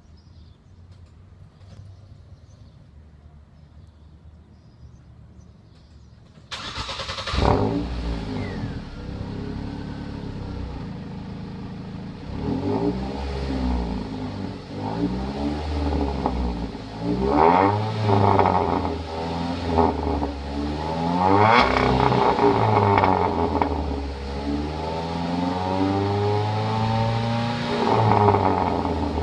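Ford EcoSport's sport exhaust, with a bullet muffler in place of the secondary resonator, a renewed main muffler and twin chrome tips, heard at the tailpipes. The engine starts about six seconds in and flares, then idles with repeated blips of the throttle, the revs rising and falling.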